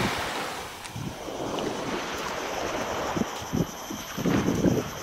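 Wind rumbling on the microphone over a wash of surf, with a few irregular soft low thumps in the second half.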